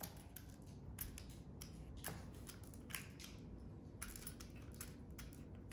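Vegetable peeler shaving a wax crayon: faint, irregular short scraping strokes, a few a second.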